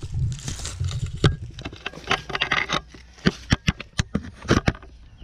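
Scuffs and sharp clicks of someone clambering over rough rock, with a run of crisp knocks in the second half.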